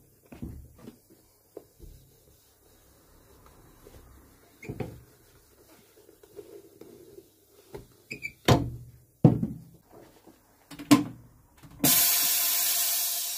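A leather sole being worked down onto a welted shoe with a cobbler's hammer: scattered light knocks, then three sharp hammer blows in the second half. Near the end comes a loud, steady hiss of air as the shoe is clamped in the sole press, fading out at the close.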